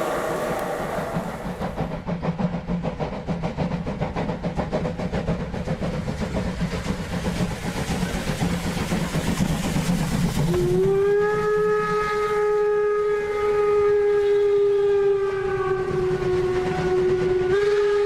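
LGB G-scale model train running on the track, with rapid clicking of the wheels over the rails and a low motor hum. About ten seconds in, the locomotive's sound module gives a long, steady signal tone lasting some seven seconds, which steps slightly up in pitch near the end.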